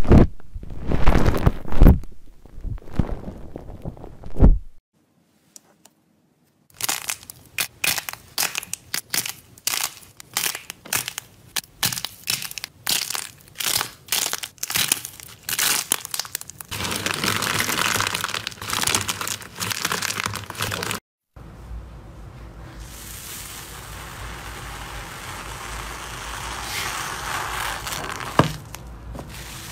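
Slime being played with by hand: first loud wet squishing of soft glossy slime in a bowl, then dense crackling as the dried clay shell on slime balls cracks under squeezing fingers. After a brief cut, a steady fizzing crunch that slowly grows louder as a metal potato masher presses into white foamy slime.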